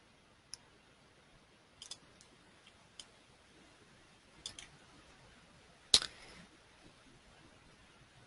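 Scattered sharp clicks at a computer, about half a dozen, the loudest near six seconds in, over a quiet room.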